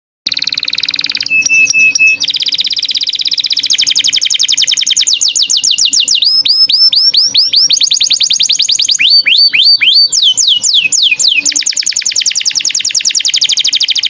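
Small songbird singing a loud, fast song that starts abruptly. It alternates long trills of rapidly repeated high notes with runs of quick, downward-sweeping chirps in the middle.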